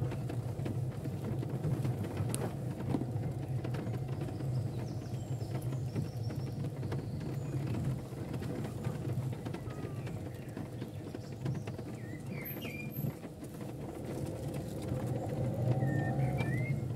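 Car running slowly along an unpaved dirt lane, heard from inside the cabin: a steady low engine and tyre rumble with light crunching from the track surface.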